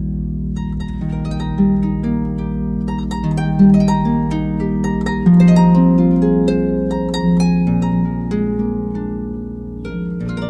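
Background music of plucked strings, harp-like, playing a slow melody over a steady low drone.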